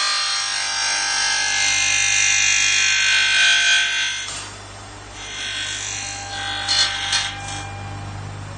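Background music that stops about four seconds in, giving way to a steady low hum with a few short loud noisy bursts near the end.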